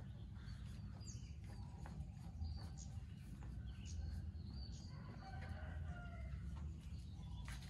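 Birds calling: scattered short chirps and clucks, some sliding in pitch, over a steady low rumble.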